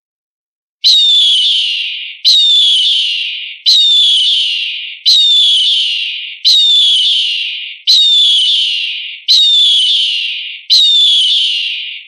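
Eagle screaming: a high call that falls in pitch and fades, repeated eight times about every 1.4 seconds, each one the same as a looped recording. The calls begin after about a second of silence.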